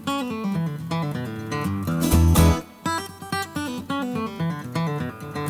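Background music of quick plucked notes over an occasional low bass note.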